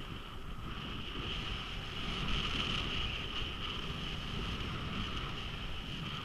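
Skis hissing steadily over packed, groomed snow, with wind rumbling on the skier's camera microphone; a little louder about two seconds in.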